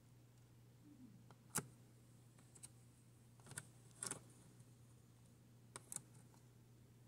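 Small plastic clicks and taps as a Tyco HO slot car is handled and turned around on its plastic track, about six in all, the loudest about a second and a half in. A faint steady low hum lies underneath.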